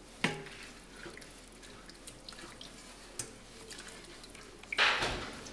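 Wooden spoon stirring a chunky stew in a cast-iron pot, with light scattered knocks and scrapes against the pot. Near the end comes a short, louder rush of noise.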